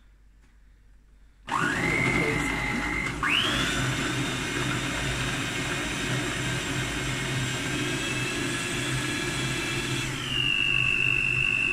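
Small electric food processor chopping onions: the motor starts about a second and a half in with a rising whine, steps up to a higher pitch a moment later, and runs steadily, dropping slightly in pitch near the end.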